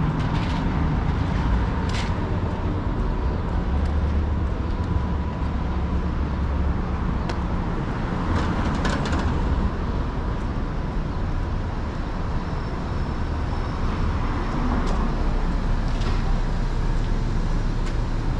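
City street ambience: a steady low traffic rumble with a faint steady tone over it, and a few scattered light clicks.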